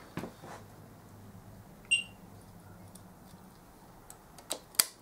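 A steel circlip being sprung onto the idler gear's shaft: a brief high metallic ping about two seconds in, then two sharp metal clicks near the end as it is pushed into its groove.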